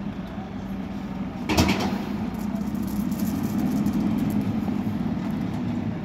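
JCB backhoe loader's diesel engine running steadily while it digs, with one sharp knock about one and a half seconds in, then the engine working a little harder.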